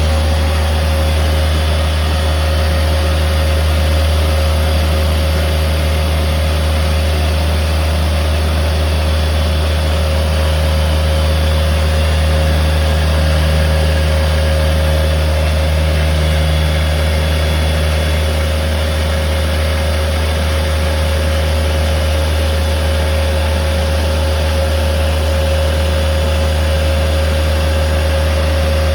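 CNC machine running steadily while a Scotch-Brite pad in a free-running sanding tool scuffs aluminium: a constant low hum with a steady whine above it.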